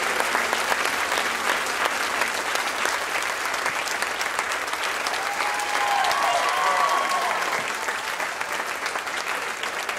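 Audience on its feet applauding: dense, steady clapping from many hands.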